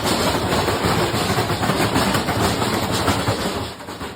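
Washing machine running with a dense, continuous rattling clatter that fades away near the end.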